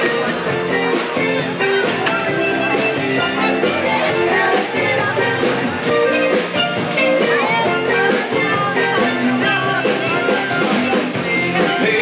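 Live band playing an upbeat rock-and-roll tune, with guitar to the fore.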